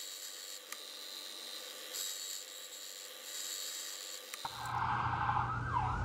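Key-cutting machine running with a steady high whine as its wheel cuts a key blank, with two slightly louder passes. About four and a half seconds in, this gives way to an ambulance siren wailing in falling sweeps over a low traffic rumble.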